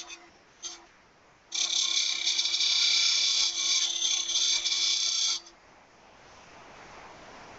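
Turning tool cutting a groove into a cocobolo duck-call blank spinning on a wood lathe: a short touch about half a second in, then a steady high cut for about four seconds that stops about five and a half seconds in.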